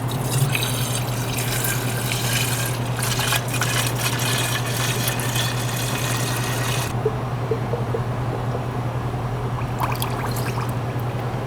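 50-50 coolant and water mix being poured into a car's cooling system, a steady gurgling pour that eases off about seven seconds in.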